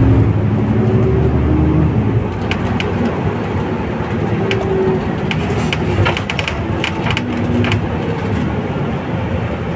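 Cabin noise inside a moving bus: a steady engine and road rumble with faint shifting engine tones, and a run of sharp rattles and clicks in the middle.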